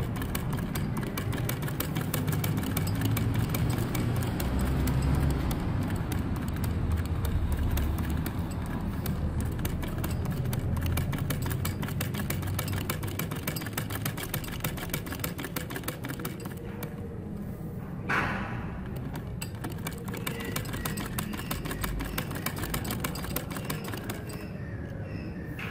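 Sewing machine stitching steadily, its needle mechanism clicking at a rapid even rate as it topstitches an embroidered neckline patch onto fabric. A single brief knock about three quarters of the way through.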